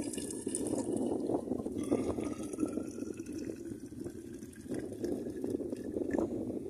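Water pouring in a stream from a soot-blackened kettle into the narrow mouth of a stainless steel thermos, the filling tone rising in pitch as the thermos fills.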